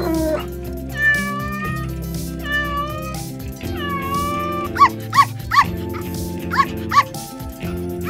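A domestic cat meowing over background music: three drawn-out meows, then six short quick meows about half a second apart.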